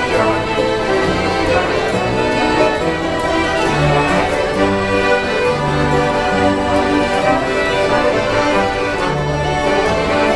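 Live instrumental music played by musicians at a Paris metro stop: sustained melodic notes over a recurring bass line.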